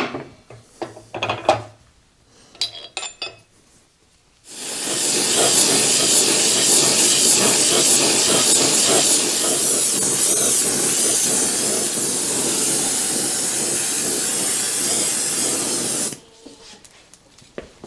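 A few knocks and clinks, then an oxy-acetylene torch flame hissing steadily for about twelve seconds before cutting off suddenly. The torch is heating a Jacobs chuck to free a sleeve that is stuck fast, which is put down to rust inside the chuck.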